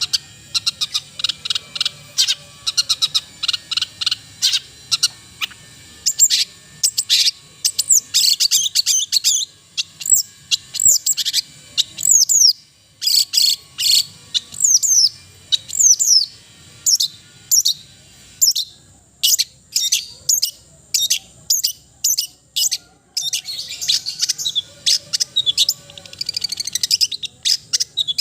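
Long-tailed shrike (cendet) singing: a fast, varied run of sharp high notes and quick downward-sweeping whistles in phrases with short pauses, turning into a dense, rapid chatter near the end.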